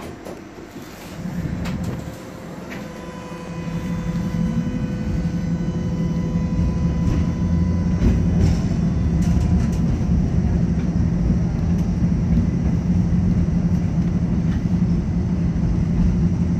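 Tatra T4D tram heard from inside the car, gathering speed: the low rumble of wheels on rail and running gear grows louder over the first few seconds, then runs steady. A faint steady whine sounds through the first half, with occasional clicks from the wheels over the track.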